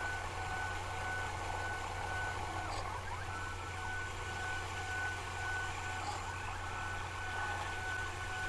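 Small CNC lathe turning a 1/4 inch water-hardening tool steel bar down to diameter: a steady motor hum under a steady high whine, with faint cutting noise.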